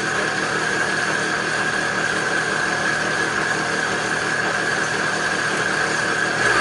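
Vitamix 750 Professional Series blender running with just water in the container, a steady motor whine with the water churning. It gets a little louder near the end.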